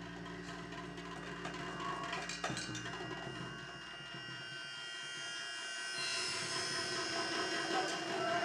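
Free improvised music: hand-played drum and percussion sounds over sustained reed and electronic tones. A low steady drone fades out about four seconds in, a single sharp hit comes about two and a half seconds in, and brighter high sustained tones build near the end.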